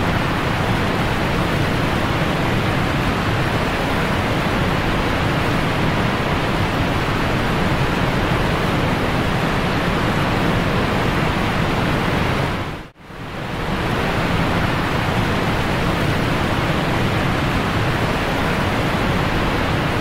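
Steady rush of a waterfall falling into a pool. It breaks off suddenly about thirteen seconds in and fades back up within a second.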